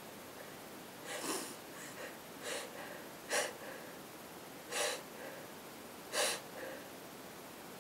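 A person's short, sharp, noisy breaths through the nose, about six in five seconds, several followed by a fainter breath.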